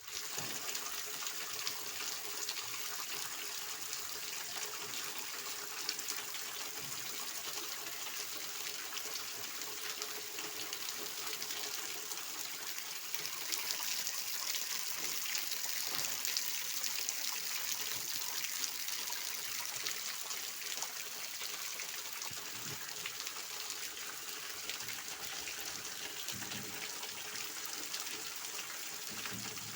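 Steady rain falling: an even hiss with many separate drop taps, holding steady throughout.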